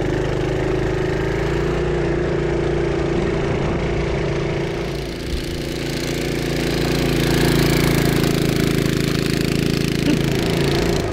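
Sears Roper mini bike's Tecumseh HS50 5-horsepower flathead single-cylinder engine running under load as the bike is ridden. Its note sags slightly about five seconds in, then picks up and grows louder.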